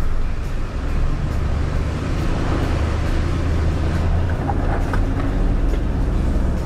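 Toyota LandCruiser 79 Series engine running steadily under load as the four-wheel drive crosses a creek ford, with water splashing around the wheels.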